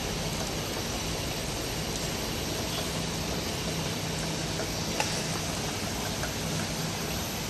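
Automatic round-bottle labeling machine running: steady mechanical noise with a low motor hum that cuts in and out every second or two, and light clicks, one sharper click about five seconds in.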